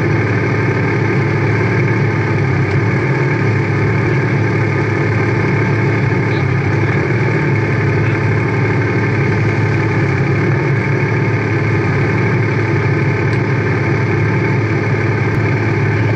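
Race car engine idling steadily on the grid, heard from the cockpit.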